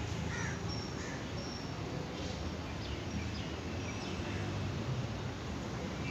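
Steady low background hum with faint, short bird chirps scattered through it.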